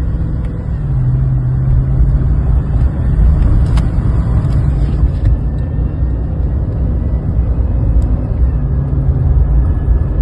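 2020 Chevy Silverado's 5.3-litre V8 running, with a faint steady high whine over the engine's low rumble: the sign of a worn drive-belt tensioner pulley. Two brief clicks, about four and eight seconds in.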